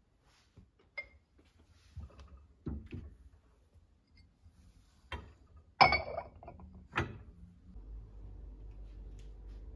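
Scattered knocks and clinks of ceramic dishes, glassware and cabinet doors being handled in kitchen cupboards, the loudest a ringing clink about six seconds in. Near the end a steady low hum sets in.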